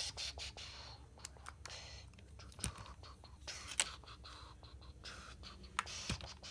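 Plastic action figures and playset pieces being handled, with scattered light clicks and faint scraping.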